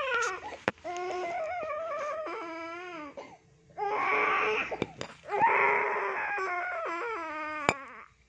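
A baby crying in long wails broken by short gasps for breath, with a brief lull about three and a half seconds in. It fades out near the end. The baby is being massaged, and a few sharp clicks sound among the cries.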